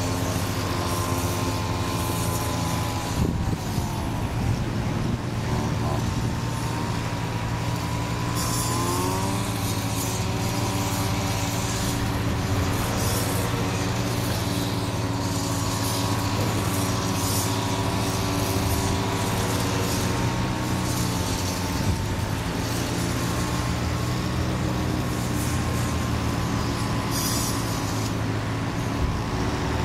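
Kobelco hydraulic excavator's diesel engine running as the machine travels under its own power, the engine speed dropping about three seconds in, rising again around nine seconds, then holding steady.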